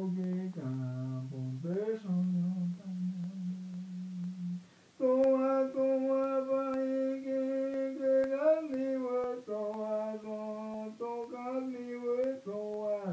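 A solo voice chanting an icaro, an Amazonian healing song, in long, drawn-out notes that slide between pitches. Near the middle it breaks off for a moment, then comes back on higher, steadier held notes.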